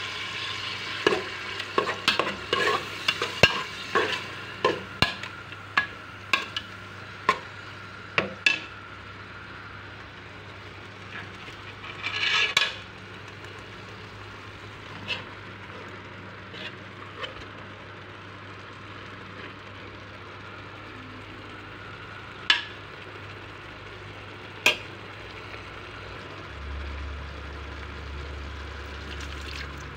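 Metal spoon stirring and scraping in an aluminium pot of sizzling tomato sauce, clinking against the pot many times over the first nine seconds or so, then only now and then over the steady sizzle. A brief louder hiss comes about twelve seconds in.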